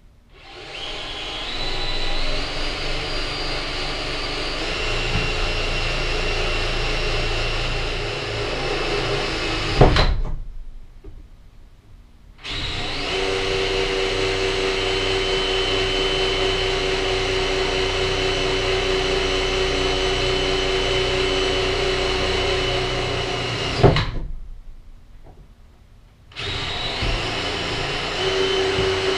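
Cordless drill boring into the wall of an enclosed trailer, running in three long spells of about ten seconds each with short pauses between. The first two spells end in a sharp knock.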